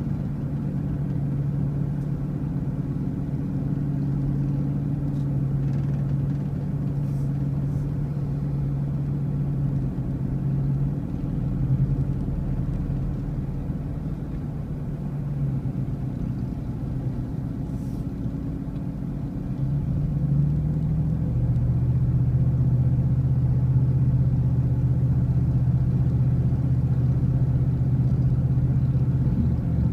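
Car engine and road noise while driving, a steady low hum. About twenty seconds in the engine note shifts and grows a little louder.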